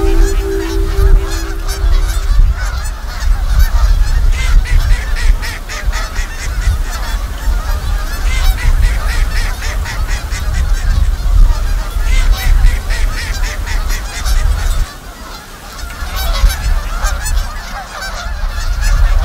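A flock of geese honking continuously over a heavy rumble of wind buffeting the microphone.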